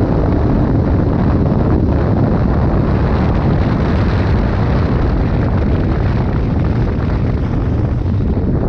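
Loud, steady wind rush and buffeting on the microphone of a KTM 1290 Super Adventure R adventure motorcycle riding at speed, with the bike's engine and tyre noise running beneath.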